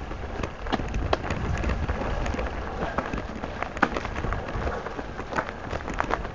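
Mountain bike rolling along a dry forest singletrack: tyres crackling over dry leaves and twigs, with frequent irregular clicks and rattles from the bike and a low rumble underneath.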